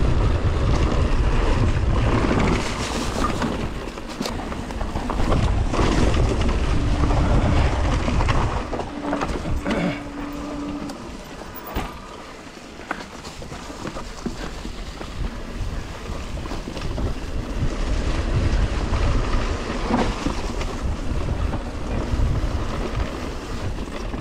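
Wind buffeting the handlebar camera's microphone and an electric mountain bike's tyres rolling over leaf-covered forest dirt on a descent, with knocks and rattles from the bike over bumps. It is loudest at the start and end and quieter through the middle.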